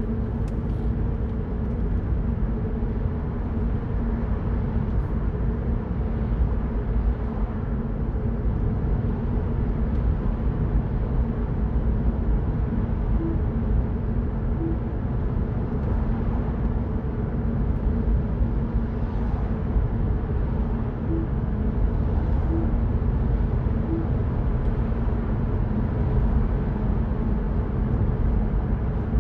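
Mini Cooper Cabrio cruising at a steady speed: an even engine drone with tyre and road rumble.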